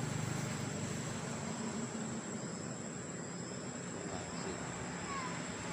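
Steady, high-pitched insect drone over a low, steady rumble, with a few faint short chirps about five seconds in.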